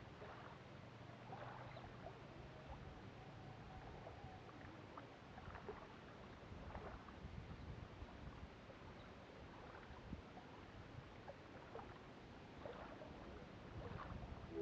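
Faint lapping of river water against shoreline rocks, a soft irregular splashing over quiet outdoor background noise.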